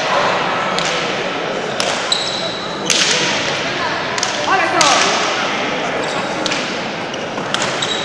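Basque pelota rally in a frontón: the hard ball cracking against the walls and off the players' hands about once a second, each hit echoing around the court, over crowd voices that rise about halfway.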